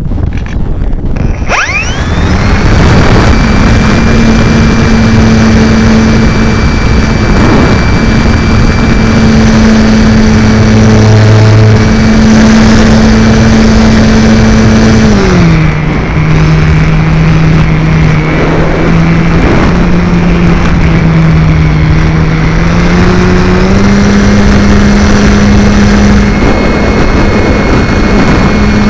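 Multiplex FunCub's electric motor and propeller heard from the onboard camera, over a steady rush of air noise. The motor spools up about a second and a half in for takeoff and holds a steady whine. Its pitch drops about halfway through and rises again a little later.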